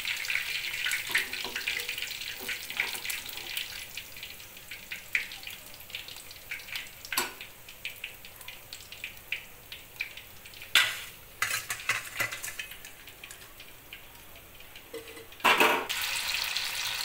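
Hot oil in a steel kadhai sizzling and crackling as fried chicken pieces are lifted out with a wire strainer. The frying dies down to light bubbling with a few sharp clinks of metal utensils, then a sudden loud burst of sizzling near the end as a fresh batch of marinated chicken goes into the hot oil.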